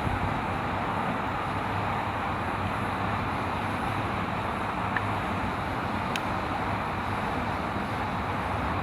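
Steady rushing outdoor background noise with a low rumble, even in level throughout, with a couple of faint clicks in the second half.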